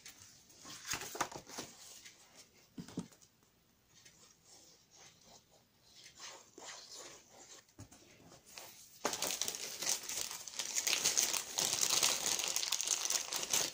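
Light scattered taps and paper rustles, then from about nine seconds in a small plastic packet of confetti sequins crinkles steadily and more loudly as it is handled.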